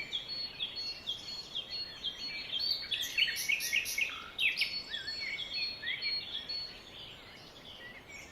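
Several small birds chirping, many short quick calls overlapping, busiest in the middle and thinning out near the end.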